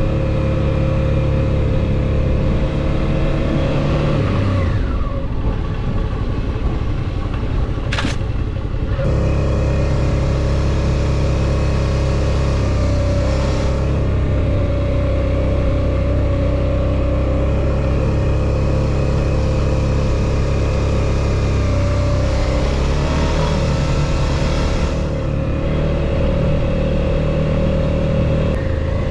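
Suzuki V-Strom 650 XT's V-twin engine running steadily as the motorcycle rides along a sand trail. The engine note dips about four seconds in and shifts again around nine seconds and near twenty-two seconds, with one sharp click about eight seconds in.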